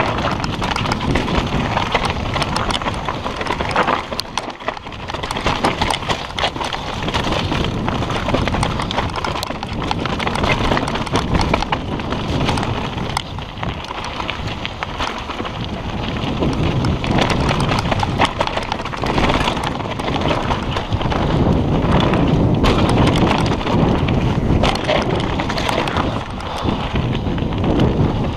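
Mountain bike descending fast over a rocky dirt trail: tyres crunching over stones and the bike clattering and rattling, a dense run of small knocks and impacts.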